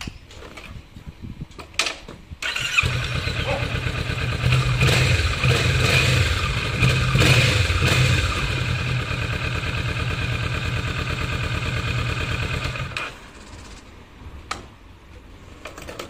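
Kawasaki Vulcan S 649 cc parallel-twin engine through its stock exhaust: it is started a little over two seconds in and revved lightly a few times, then idles steadily until it is switched off about three seconds before the end. A few small clicks come before the start and one after the shutdown.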